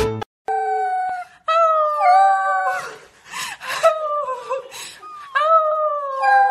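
Corgi puppy howling: a run of about four long, high, wavering howls, several sliding down in pitch as they end.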